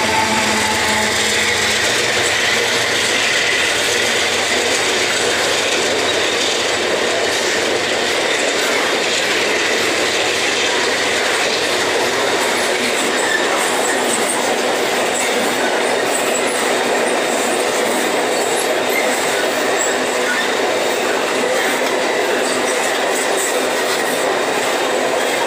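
A freight train's ore wagons rolling past close by: a steady rattle and clatter of steel wheels on rail, with faint wheel squeal. The tail of the diesel-electric locomotive's engine sound fades out in the first second.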